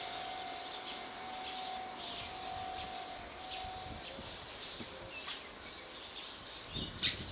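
Small birds chirping and twittering over outdoor ambience. A faint steady tone, broken by short gaps, stops about four seconds in, and a sharp click comes near the end.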